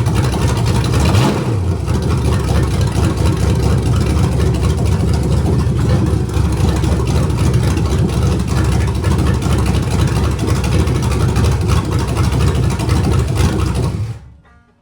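1973 Chevy 350 small-block V8 with a big cam and headers, running steadily at fast idle on the carburettor's cold-idle setting while cold. The sound cuts off suddenly near the end.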